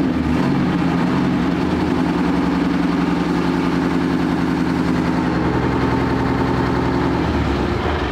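The restored M3 Grant tank's engine, freshly started, idling steadily with an even, loud running note; about seven seconds in the note changes and the engine starts to wind down.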